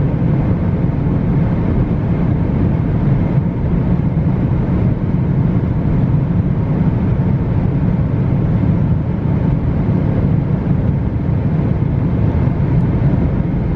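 Inside the cabin of a 2016 Audi A4 1.4 TFSI, its turbocharged four-cylinder petrol engine pulls steadily under full throttle at high revs in fifth gear as the car nears 200 km/h, mixed with steady road and wind noise.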